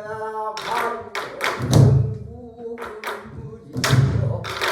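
Pansori barrel drums (sori-buk) struck by several drummers: sharp wooden clicks on the drum's rim and shell, with two deep thumps on the drumhead about two and four seconds in. A singer's held note ends early on, and a short phrase is sung between the strikes.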